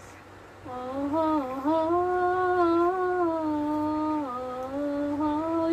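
A woman humming a slow melody in long held notes, starting about a second in, the pitch stepping gently up and down.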